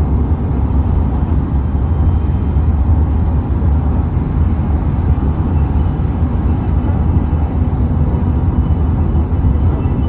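Steady low rumble of road noise inside a moving vehicle's cabin.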